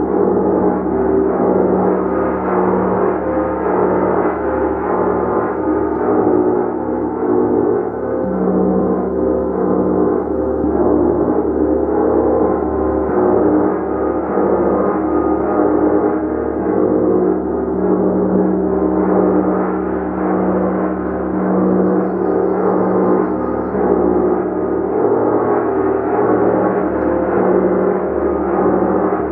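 A large gong played continuously, its sustained overlapping tones building into a dense, shimmering wash with a steady low hum and pulsing beneath it.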